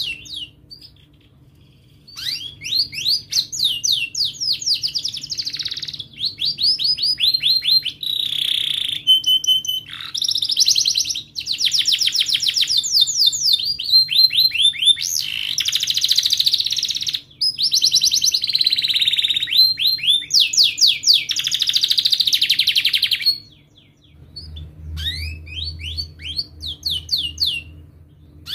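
Domestic canary singing: long rolling trills and sharp rapid chirps in phrases of a few seconds each, after a short pause at the start. Near the end the song breaks off into a pause and a few softer notes.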